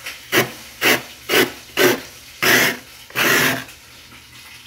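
Frost being scraped off the inside wall of a freezer with a flat scraper: four quick strokes about half a second apart, then two longer strokes.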